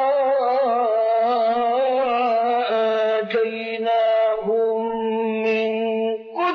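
A man's solo voice chanting in Iraqi maqam style, the style of Quran recitation. He holds long, ornamented notes with a wavering vibrato and moves to a new note a few times.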